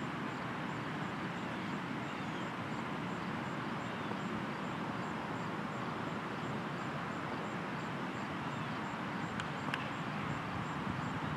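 Steady outdoor background noise with faint, evenly repeating high ticks, and two sharp clicks close together near the end.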